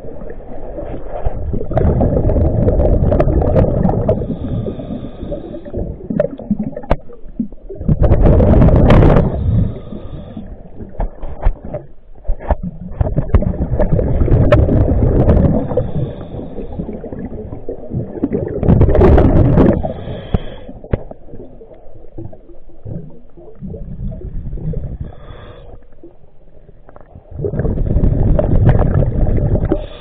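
Scuba diver breathing underwater through a regulator. Exhaled bubbles rush past the microphone in five loud surges roughly every five or six seconds, with quieter hissing between breaths.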